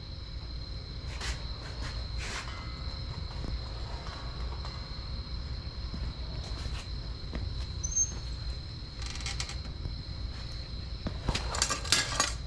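Crickets trilling steadily over a low background rumble, with a few scattered clicks and knocks, the busiest cluster near the end.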